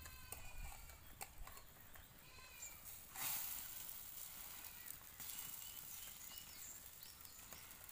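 Quiet light scraping and clicking of a metal spatula against a small iron frying pan over a wood fire, with faint animal bleats in the background.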